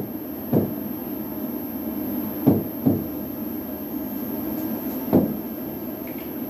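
Stylus knocking against an interactive whiteboard screen during writing: a dull knock about half a second in, two close together around two and a half to three seconds, and one more a little past five seconds, over a steady low hum.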